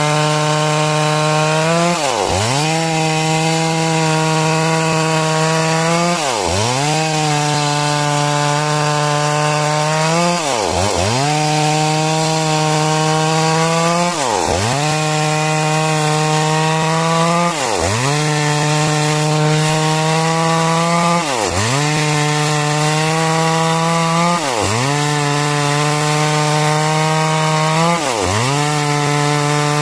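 Chainsaw running at high revs, cutting lengthwise through timber to saw out a beam. The engine note is steady, with a sharp drop and quick recovery in pitch about every three and a half seconds.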